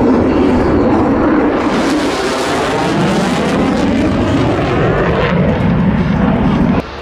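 Jet aircraft flying past with a loud, steady rushing roar, its tone sweeping as it passes; the sound cuts off abruptly near the end.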